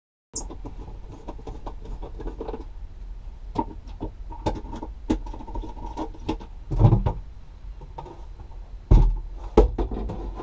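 Irregular clicks and taps from hands working at a plastic access panel, unscrewing and lifting it off to reach the wiring behind, with a few heavier thumps later on.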